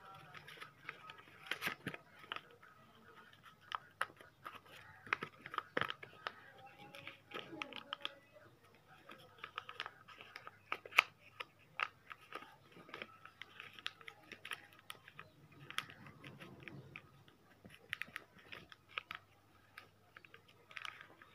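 Paper being folded and creased by hand: irregular crinkles and sharp little crackles as the sheet is bent and pressed into shape.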